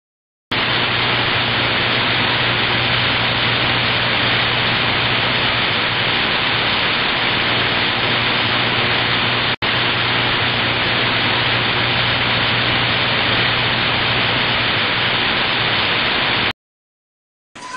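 Loud, steady static hiss that starts half a second in, drops out for an instant about halfway through, and cuts off suddenly near the end, followed by a short burst of noise just before the end.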